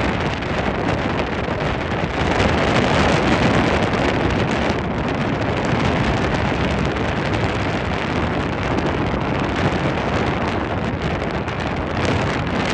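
Wind rushing steadily over the microphone of a speedboat under way on open river water, blended with the noise of the boat and the water. It swells a little about two seconds in.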